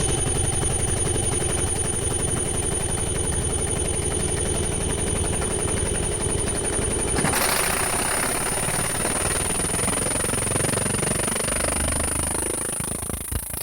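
Laser printer running with a fast, steady, rhythmic mechanical chatter and a constant high whine. The chatter changes about seven seconds in and dies down near the end.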